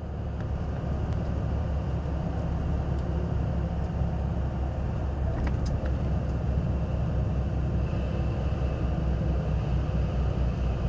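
Vehicle driving at about 40 km/h, heard from inside the cab: a steady low engine hum with road and tyre noise.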